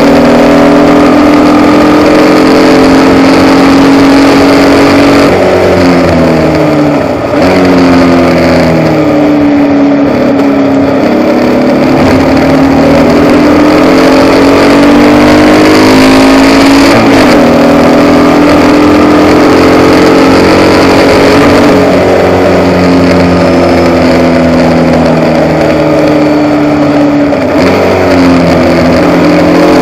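Onboard sound of a Formula Vee racing car's air-cooled Volkswagen flat-four engine running hard, very loud on the camera. Its pitch climbs under acceleration and falls in steps where it brakes and changes down, about six seconds in, again around seventeen seconds and near the end.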